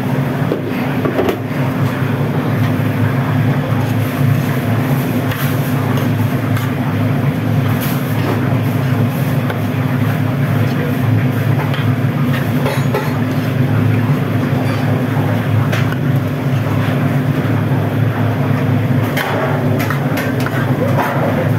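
Steady low drone of commercial kitchen machinery, with a few light knocks and clinks scattered through.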